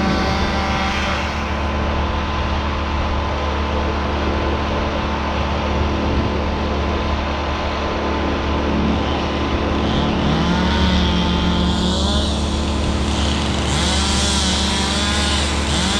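An engine running, its revs rising and falling several times.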